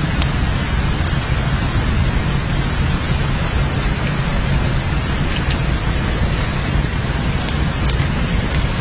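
Steady rain with a deep, constant low rumble underneath and scattered sharp clicks of individual drops.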